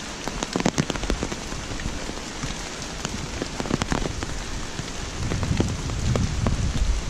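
Steady rain falling on leaves and a wet paved path, with close drops striking sharply now and then, most thickly in the first second and near the middle. A low rumble comes in about five seconds in.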